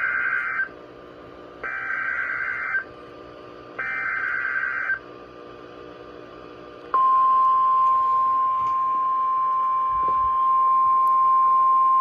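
Emergency Alert System SAME header: three screeching digital data bursts, each about a second long and about a second apart. About seven seconds in, the steady single-pitched 1050 Hz National Weather Service warning alarm tone starts. It is the attention signal that opens a tornado warning.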